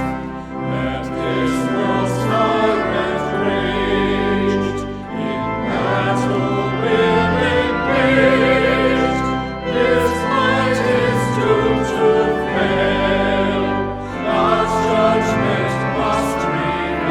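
Church music: voices singing with instrumental accompaniment, in long held phrases with wavering notes.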